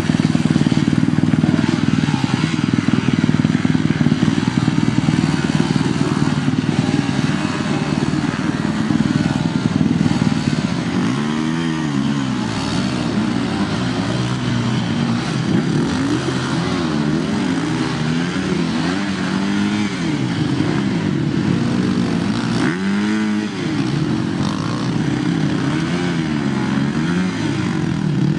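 Two-stroke dirt bike engines revving hard in deep mud, the pitch rising and falling again and again as the throttle is worked.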